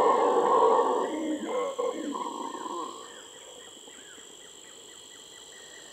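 Howler monkey howling in deep, rough roars. The roar breaks up after about a second and fades out by about three seconds. Then rainforest ambience remains: a steady insect drone and a short chirping call repeating about three times a second.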